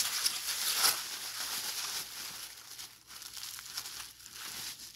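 Plastic bubble wrap crinkling and crackling as gloved hands pull it open and unwrap it, loudest in the first couple of seconds, then quieter and more broken.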